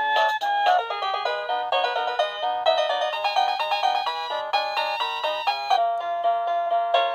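SmartDude SD003 wireless doorbell receiver playing one of its built-in electronic chime melodies through its small speaker: a quick run of clean, bright notes. The tune changes character a little before six seconds in.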